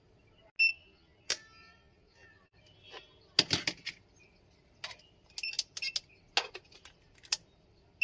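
Plastic buttons on handheld remote controls being pressed: about a dozen sharp clicks at irregular spacing, some in quick runs of two or three, a few with a short high chirp.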